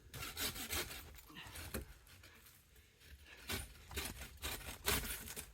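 Irregular scraping and rustling of cut tree branches being handled, in short quick strokes that come in bunches near the start and again in the second half.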